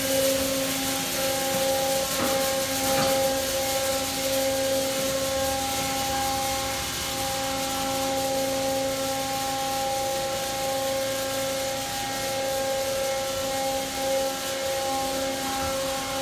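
Soft-cloth car wash machine at work: water and foam spraying onto the car with a steady hiss, over a constant humming whine from the wash machinery.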